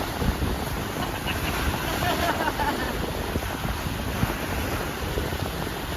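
Wind buffeting the microphone over steady surf washing on the shore, with faint voices about two seconds in.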